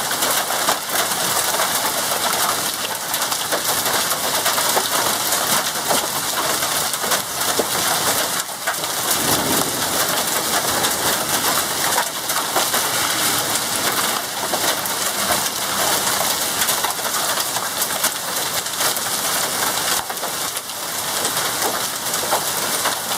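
Heavy hail pelting down, a dense, steady clatter of countless stones striking hard surfaces.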